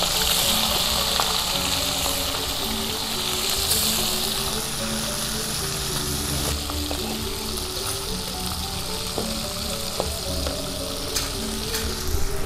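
Small fish deep-frying in hot oil in a wok: a steady sizzle, loudest in the first few seconds, with a few light clicks of a metal spatula turning the fish. Soft background music with a slow stepping melody plays under it.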